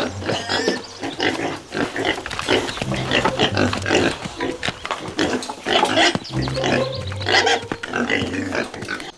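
Pigs grunting and squealing, many short calls in quick, irregular succession.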